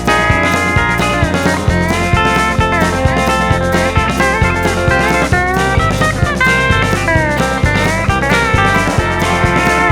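Instrumental break of a country-rock song: a lead electric guitar plays a solo with bending, sliding notes over bass and drums.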